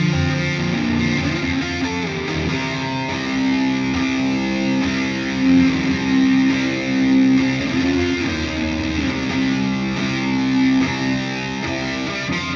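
Background music: distorted electric guitar rock, with sustained and bending guitar notes.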